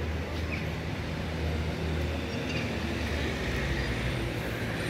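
City street traffic: a steady low rumble of vehicle engines and tyres passing close by, heaviest in the first three seconds.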